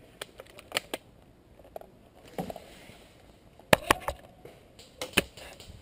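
Airsoft guns firing: sharp single clacks, a few scattered early, then a quick run of three about two-thirds through and two more near the end.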